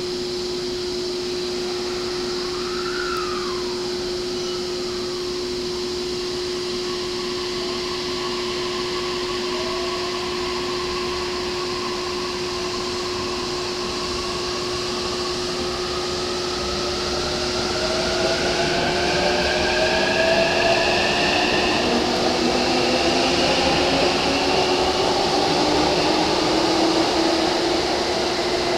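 A stationary E231 series commuter car (trailer car SaHa E231-133) hums steadily from its onboard equipment, with one constant tone. From a little past the middle, the whine of another electric train rises in pitch and grows louder as it accelerates.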